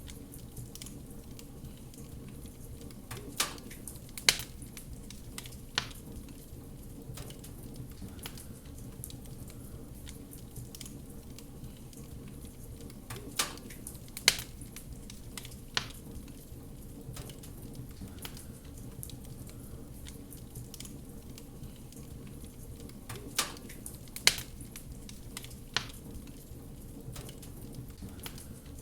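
Wood fire burning in a fireplace: a steady low rumble with scattered small crackles, and sharp louder pops in three groups of three, about ten seconds apart.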